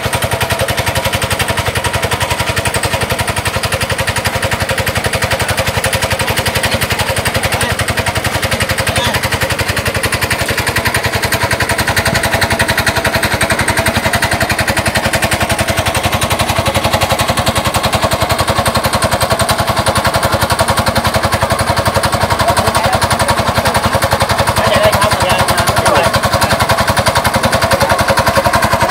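Small engine driving a water pump that drains the pond, running steadily at speed with a rapid, even exhaust beat.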